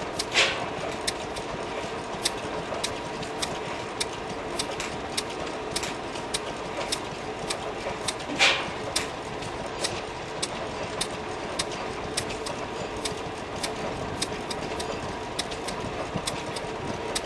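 Large horizontal single-cylinder stationary engine with a heavy flywheel running slowly: light regular clicks from the valve gear about one and a half to two times a second, with a louder beat about every eight seconds.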